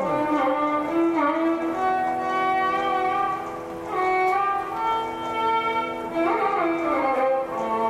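Instrumental background music: a bowed string melody of held notes with slides between them.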